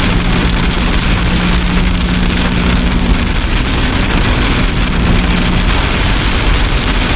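Heavy rain pelting a moving vehicle during a severe thunderstorm, a dense, steady downpour noise. A steady low hum runs under it and cuts out about three seconds in, returns briefly, and stops before six seconds.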